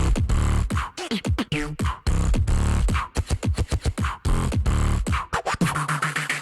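Solo beatboxing: a fast pattern of sharp mouth-made percussion hits over deep bass booms, with quick falling laser-like pitch sweeps.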